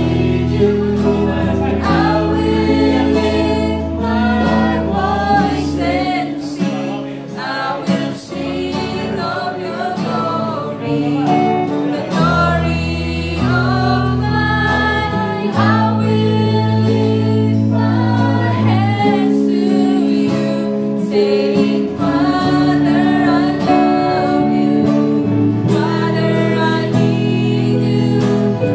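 Live worship song sung by a small group of women, with an acoustic guitar strumming, an electric guitar and an electronic keyboard. Sustained low notes shift every few seconds under the voices.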